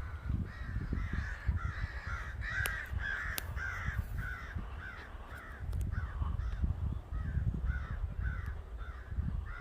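Crow-family birds, called ravens, cawing in a steady run of short harsh calls, about one and a half to two a second, as they chase a vulture away.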